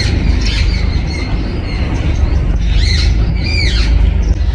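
Birds calling: a short call about half a second in, then two calls close together about three seconds in, each rising and falling in pitch. A constant low rumble runs underneath.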